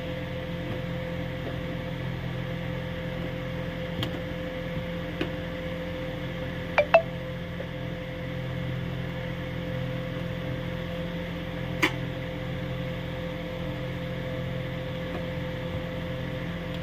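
A steady hum with a constant tone, like a fan or appliance, under faint sounds of hands working oil into flour in a steel bowl. A few light clicks break through, the loudest a sharp double tap about seven seconds in.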